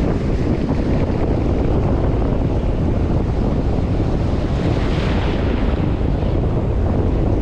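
Wind buffeting the microphone over steady ocean surf, a loud, even rumble with a brighter hiss of water swelling about five seconds in.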